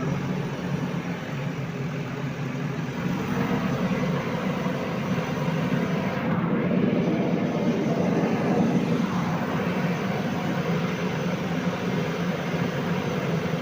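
JCB 3DX backhoe loader's diesel engine running steadily under working load, its level rising a little about three seconds in and again around eight seconds.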